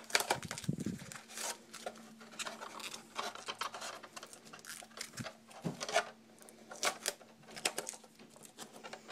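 White foam packing sheet being peeled and pulled off a fiberglass RC helicopter canopy: irregular rustling and crinkling of the wrap against the shell, with no steady rhythm.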